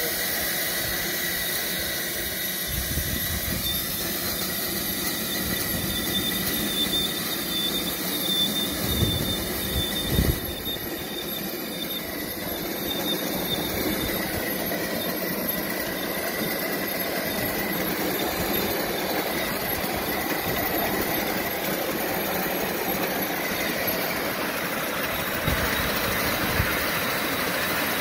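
A 5-inch gauge live-steam B1 locomotive running along miniature railway track, a steady high squeal and hiss over its running noise. A couple of sharp knocks about ten seconds in.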